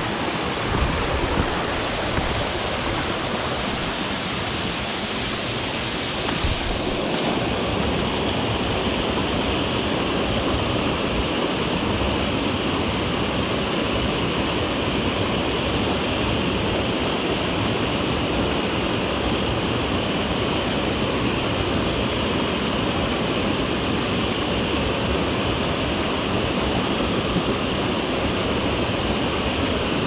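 Mountain stream running over rocks: a steady rushing of water. About seven seconds in, the sound loses some of its high hiss and then continues evenly.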